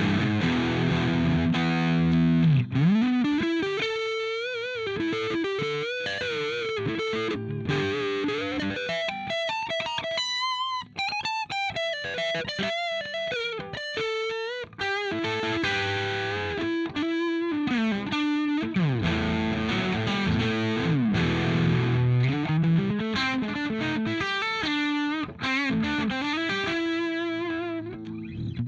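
Electric guitar played through a TC Electronic MojoMojo overdrive pedal, with a distorted, sustaining tone. It opens with held chords, then moves into single-note lead lines with slides and vibrato, climbing higher near the middle. It returns to chords and cuts off suddenly at the end.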